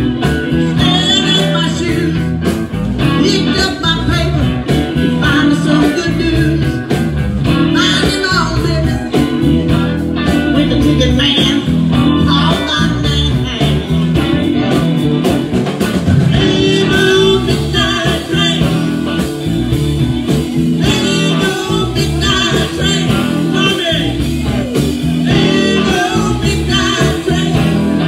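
A live blues band playing with electric guitars, bass, drums and keyboard, in a stretch without sung words, with bending lead lines over a steady beat.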